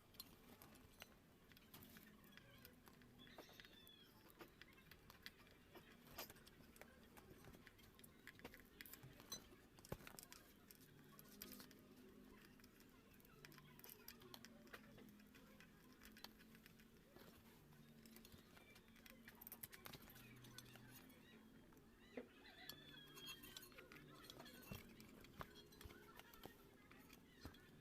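Near silence: faint scattered clicks and taps over a low hum.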